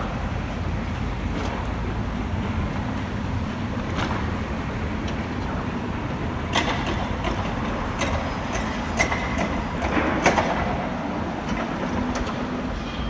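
Excavators working a demolition site: a steady low engine rumble, with several sharp clanks of metal and broken concrete between about six and ten seconds in.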